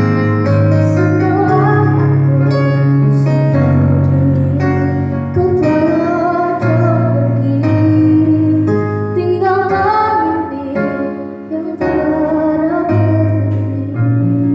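A song: a female voice sings a gliding, wavering melody over a plucked-string and keyboard accompaniment.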